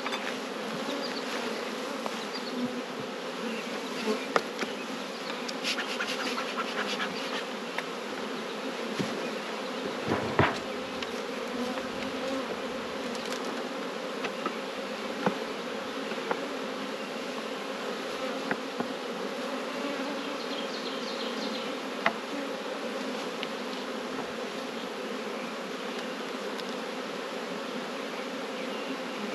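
Honey bees buzzing around an opened hive, a steady hum, with a few sharp knocks as frames and boxes are handled, the loudest about a third of the way through.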